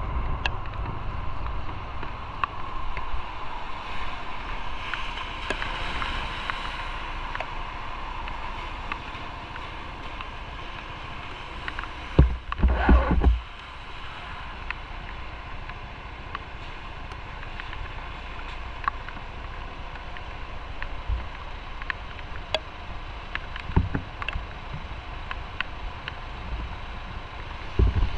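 Motorcycle on the move: steady wind and road noise on the microphone, with a louder rush of about a second roughly twelve seconds in.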